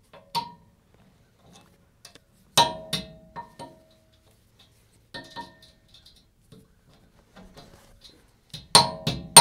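Steel pliers clinking against a cotter pin and the bolt hardware of a B&W Companion hitch: a handful of separate sharp metallic clicks, each with a brief ring, the loudest about two and a half seconds in and a quick cluster near the end.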